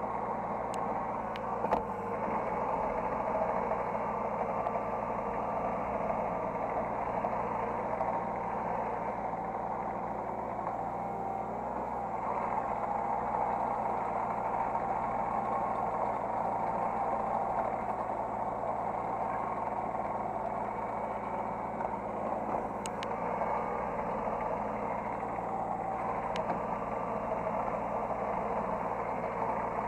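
Hydraulic excavator's diesel engine running steadily, heard from the operator's cab, with a wavering whine near the middle and a few short clicks.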